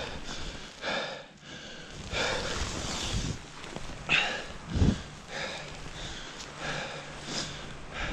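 A skier breathing hard and panting from the effort of struggling through deep powder snow, breaths coming about once a second, with a low thump about five seconds in.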